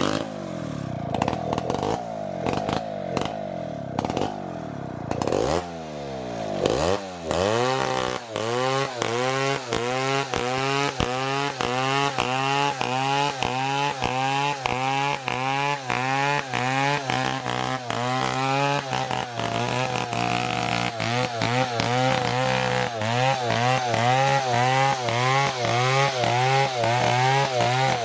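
Two-stroke chainsaw ripping a felled coconut trunk lengthwise into boards. It runs at a fairly steady pitch for the first few seconds, then its pitch dips and recovers over and over in a regular rhythm as the bar works along the cut.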